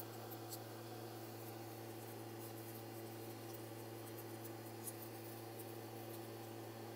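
Faint crinkles and a couple of light ticks from thin aluminum foil strips being folded and handled, over a steady low hum.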